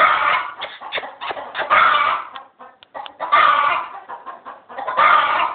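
An animal calling loudly four times, about a second and a half apart, each call about half a second long.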